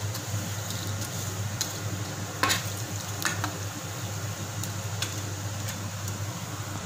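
A metal spatula stirring and scraping sugar-coated fried rice and peanuts around an aluminium pan, with several short scrapes, the loudest about two and a half seconds in, over a steady low hum and hiss.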